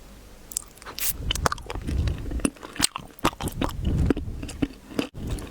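A person biting into and chewing crunchy wax candy sticks close to the microphone, a rapid run of sharp cracks and crunches.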